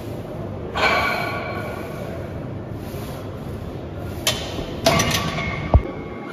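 Metal gym equipment clanking: a loud ringing clank about a second in, then a couple of sharp knocks and a short low thud near the end.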